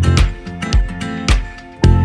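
Background music: acoustic guitar strumming over a steady beat, with a bass line.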